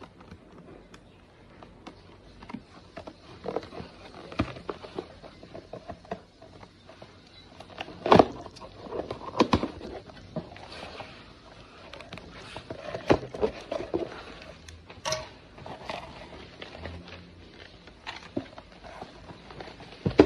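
Scissors cutting open a cardboard shipping box: irregular snips, scrapes and crackles of tape and cardboard, with packaging rustling as it is handled.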